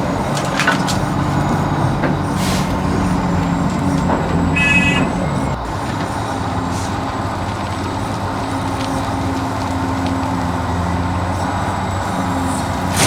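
Scale RC construction machines at work, running with a steady engine-like hum and scattered small clicks. A short high-pitched tone sounds about five seconds in.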